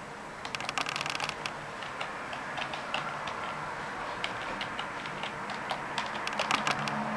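Typing on a computer keyboard: a quick run of keystrokes about half a second in, scattered single keystrokes through the middle, and another flurry near the end.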